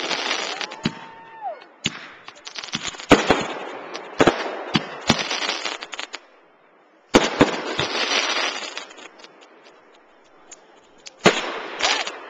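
Aerial fireworks going off: volleys of sharp bangs from bursting shells, each followed by a spell of dense crackling. There is a lull about halfway through before the next volleys.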